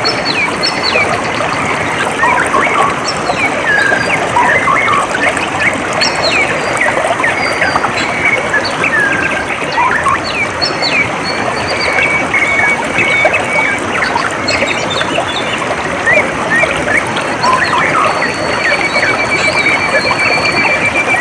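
Water trickling steadily, with many small birds chirping and calling over it; a rapid trill comes in about twelve seconds in and again near the end.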